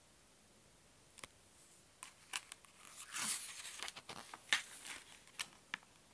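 A page of a hardcover picture book being turned by hand: paper rustling with a few sharp ticks, the rustle loudest about three seconds in.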